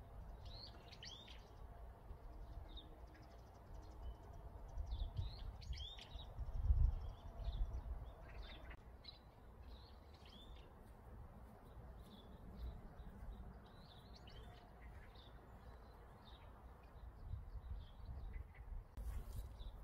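Small songbirds chirping, with many short, quick calls throughout. Under them runs a low rumble that is loudest about seven seconds in.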